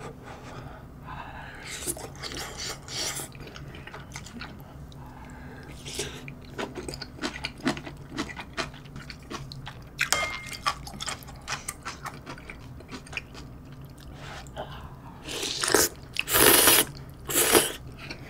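A person eating ramyeon noodle soup close to the microphone: quiet chewing and small clicks of utensils on the bowls, then a few loud slurps near the end.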